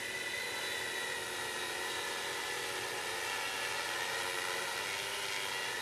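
Tarot X6 hexacopter hovering steadily, its six motors and 18-inch propellers giving an even, quiet hum.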